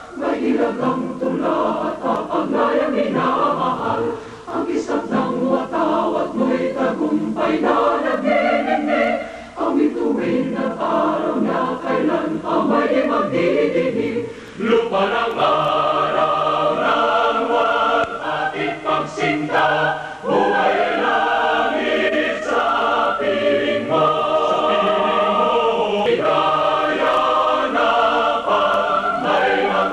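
A choir singing a slow song in held chords, in phrases with short breaths between them about every five seconds.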